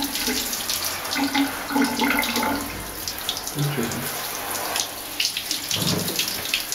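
Water running from a handheld shower head onto a dog's fur as the dog is wetted down for a bath.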